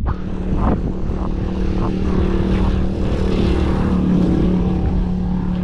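A motor engine running steadily at close range, with its pitch shifting slightly as it passes.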